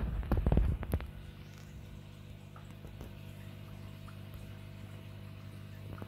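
For about the first second, loud irregular rumbling and buffeting, like wind or handling on the microphone. Then a steady low hum from the aquarium's running equipment, with faint scattered drips and ticks of water.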